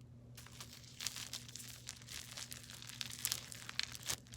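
Clear slime with styrofoam balls mixed in being squeezed and kneaded by hand, giving an irregular crackling and crinkling that picks up about a second in, over a faint steady hum.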